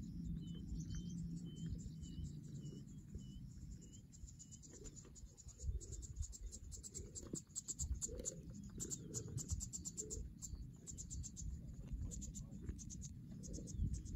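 Short high chirps repeated about twice a second for the first few seconds, then a rapid high ticking chirr from about five seconds in, over a low rumble: bird and insect calls in open grassland.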